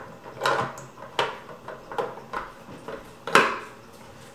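Hard plastic clicks and knocks from a Hot Wheels Ready to Race build-it-yourself toy car as its hood and engine parts are worked by hand: about six separate knocks, the loudest a little past three seconds in.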